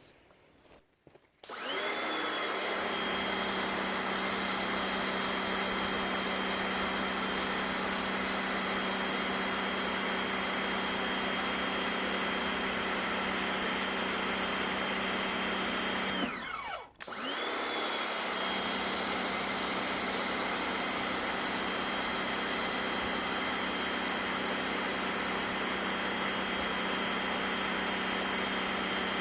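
SunJoe electric pressure washer's motor and pump starting up about a second and a half in and running steadily with a whine and a spray hiss, driving the surface-cleaner attachment over concrete. About halfway through it stops briefly, its pitch falling away, then starts up again.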